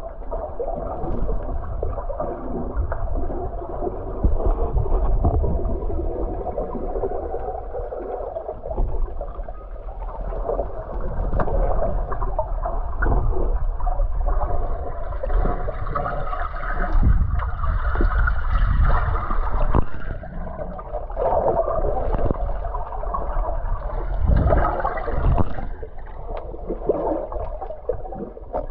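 Muffled underwater water noise: water gurgling and swishing around a submerged camera, swelling and fading in uneven surges.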